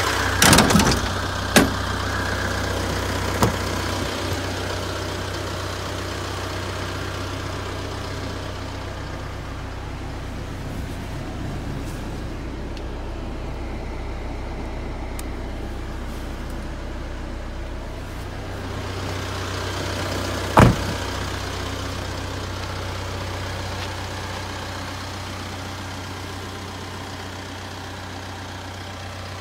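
Isuzu Elf truck's engine idling steadily with a low hum. A few sharp knocks come early on, and a louder single knock comes about two-thirds of the way through.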